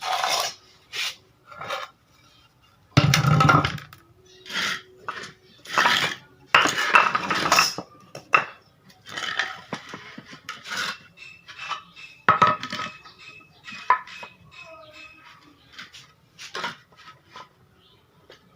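Wooden posts and boards being handled and set down: irregular knocks, clatters and short scrapes of wood on wood, with one heavy thump about three seconds in.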